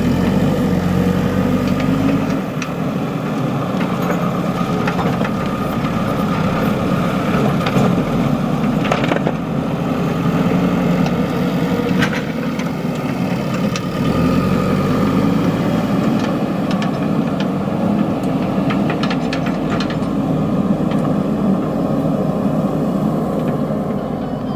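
Heavy diesel engine of a JCB 3DX backhoe loader running steadily, its deepest rumble dropping away about two seconds in and returning around the middle. A few sharp knocks are heard, the loudest near the middle and a cluster near the end.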